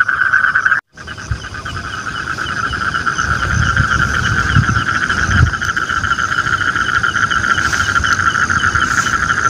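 Steady night chorus of frogs and crickets, a dense pulsing trill. It drops out briefly just under a second in, and a few low thumps come in the middle.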